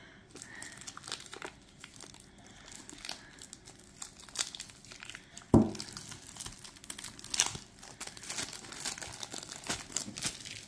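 Clear cellophane shrink-wrap being peeled and torn off a boxed card deck, crinkling irregularly. There is one louder thump about halfway through.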